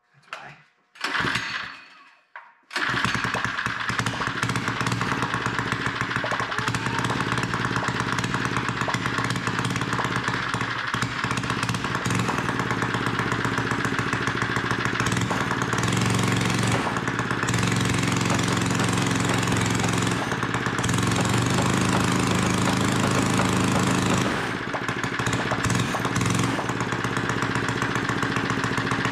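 A Power Fist 79cc single-cylinder OHV four-stroke engine, with no exhaust fitted, is started, catching about three seconds in, then runs steadily. It is throttled up for several seconds in the middle.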